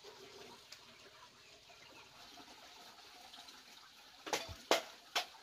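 Water running or trickling faintly, then a run of sharp splashes about half a second apart near the end, like water being sloshed or scooped by hand.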